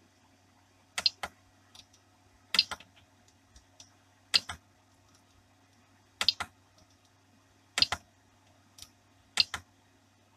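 Rotary encoder knob on a 3D printer's LCD controller being pressed: six sharp double clicks at fairly even intervals, with faint ticks between them as it is turned. A low steady hum runs underneath.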